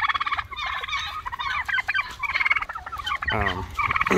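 Turkey toms gobbling again and again, several rapid rattling gobbles in quick succession, as rival toms strut and display at each other.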